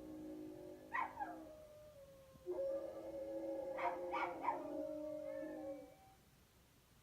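Dogs howling together in two held pitches, with short falling yips mixed in, in answer to coyotes they have heard. The howling stops about six seconds in.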